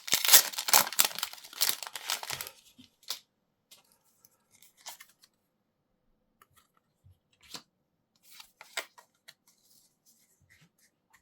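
A foil Pokémon TCG booster pack being torn open, a dense crinkly tearing for about the first two and a half seconds, followed by scattered faint rustles and taps as the cards are handled.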